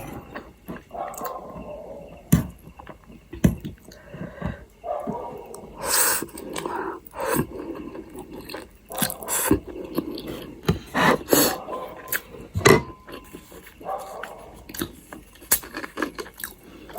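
Close-up mukbang eating sounds: a person chewing food, with many short wet mouth clicks and smacks scattered irregularly through the stretch.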